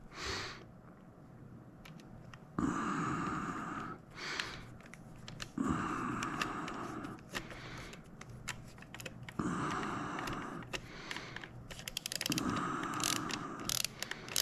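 Screws being driven into the plastic housing of a Logitech Extreme 3D Pro joystick: four spells of turning, each about a second and a half long and roughly three seconds apart, with quick clicks near the end.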